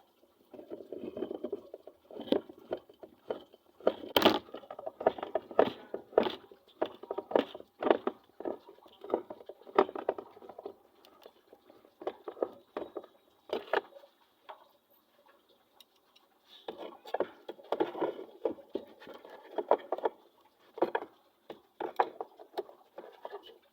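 Irregular clicks, knocks and short rattles of hard parts being handled and worked on, with brief pauses between bursts; this is most likely a washing machine gearbox being handled.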